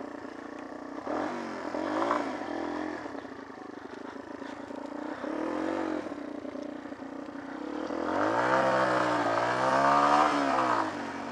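Small off-road motorcycle engine under way, revving up and easing off several times, with a longer, louder rev near the end.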